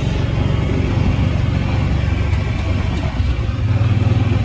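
Engine of a Gator utility vehicle running steadily with a low hum, a little louder near the end.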